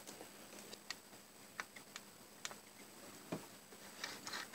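Faint, irregular small clicks and taps of hands handling a plastic HO-scale model locomotive chassis and its wiring, with a few clicks near the end.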